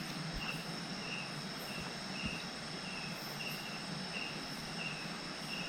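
Night insects calling in the rainforest: a short chirp repeated at an even pace, about one and a half times a second, over a constant high-pitched trill.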